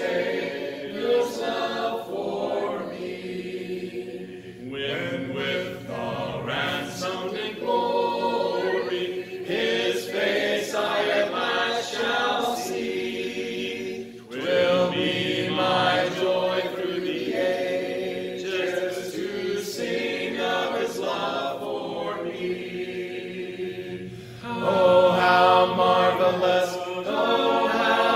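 A group of voices singing a hymn a cappella, without instruments, in sustained phrases with brief pauses between lines.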